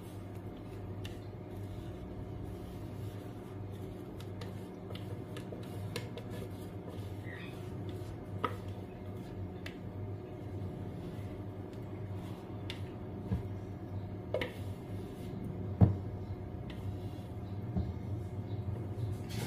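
A spatula scraping cake batter out of a plastic jug over a stainless steel bowl. A few light clicks come through, and one sharp knock about three-quarters of the way through, over a steady low hum.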